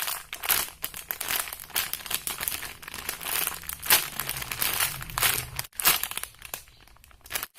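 Plastic wrapping of a squishy toy crinkling and rustling in quick irregular bursts as it is handled, easing off near the end.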